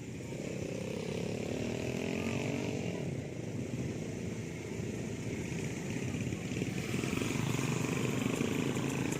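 Small off-road motor vehicle engine running. Its pitch rises over the first few seconds as it speeds up, then it runs steadily and gets louder near the end.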